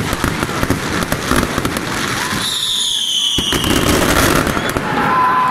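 Daytime fireworks going off: a dense, rapid crackle of firecracker reports, broken about two and a half seconds in by a short falling whistle and then one sharp bang.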